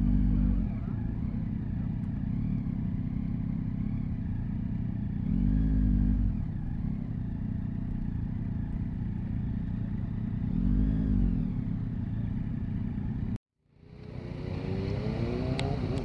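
Yamaha MT-09 SP's inline three-cylinder engine running at low revs, with three short throttle blips a few seconds apart. Near the end the sound drops out abruptly for about half a second, then the revs climb again.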